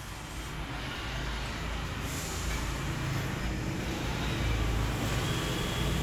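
iRobot Roomba i7 robot vacuum running on a hard tile floor, its suction fan and brush motors working as it drives; the steady noise grows louder over the first few seconds.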